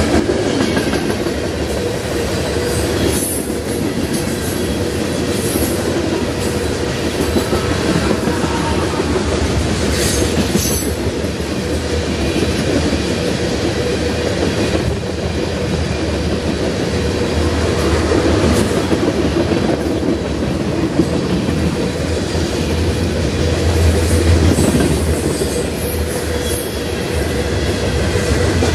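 A CSX freight train's tank cars and covered hoppers rolling past: a steady rumble with wheel clatter on the rails, and a few brief high squeals from the wheels.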